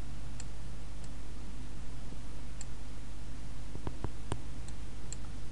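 Computer mouse clicking a few times, with a quick cluster of sharper clicks about four seconds in and scattered faint ticks, over a steady low electrical hum.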